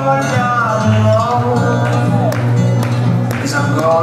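A song playing: a voice singing a melody over guitar accompaniment with a steady bass line.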